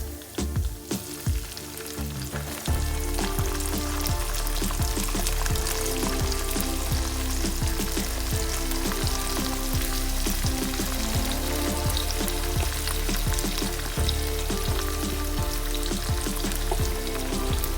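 Food frying in hot oil in a pan, a steady sizzle with dense crackling that gets louder about three seconds in.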